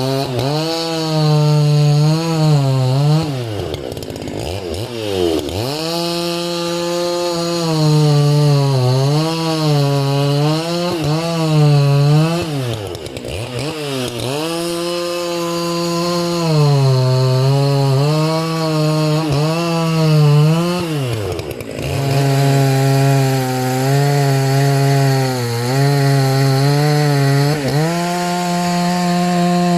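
Dolmar PS-9010 90 cc two-stroke chainsaw running at high revs, its pitch dipping and wavering as it works through wood. Three times the revs drop sharply almost to idle and climb back up.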